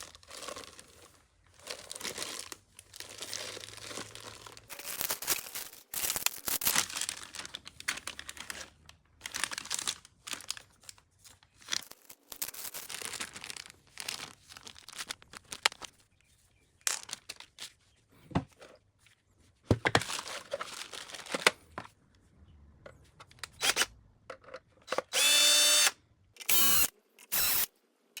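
Rustling, crinkling and clicking as packaging and parts are handled, in irregular bursts. A brief, loud whirring sound with a wavering pitch comes near the end.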